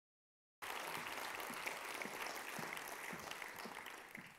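Audience applauding. The applause cuts in suddenly about half a second in and is dying down by the end.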